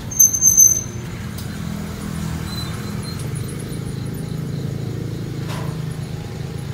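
Steady low mechanical rumble, with a brief, loud, high-pitched squeal about a quarter second in that lasts about half a second.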